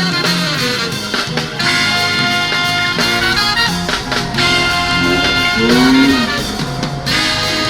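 Background music, funk-jazz with horns over a steady groove.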